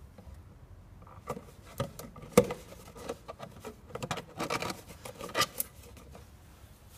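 Plastic ATF bottle and funnel handled while automatic transmission fluid is poured into the gearbox filler: irregular plastic clicks, taps and rubbing, the sharpest knock a little over two seconds in and a quick cluster of sounds about four to five and a half seconds in.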